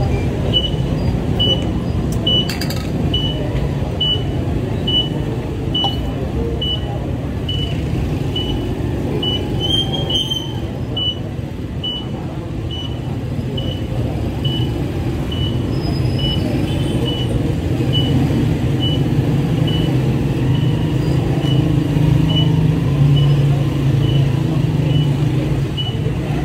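Street traffic: motor vehicle engines running and passing, with a low engine hum that grows louder in the last third and some faint voices. A short, high electronic beep repeats steadily about every half second.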